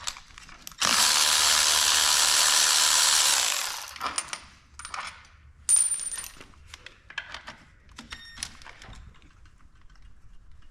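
A power tool runs steadily for about three seconds, then stops. Scattered metallic clicks and knocks follow as tools and metal parts are handled, with a bright metallic ping about six seconds in.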